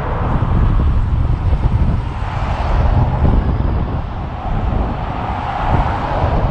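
Steady low rumble and rushing noise of a truck running, heard from inside the cab.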